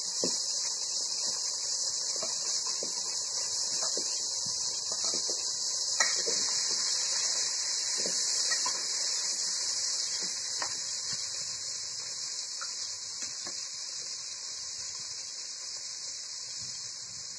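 A spoon stirring and scraping meat in an aluminium pot on a gas-cylinder burner: scattered short clinks and scrapes against the pot, under a steady high hiss.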